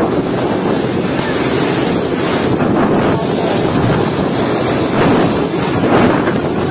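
Strong typhoon wind gusting and buffeting the microphone, a dense rushing noise that surges a few times.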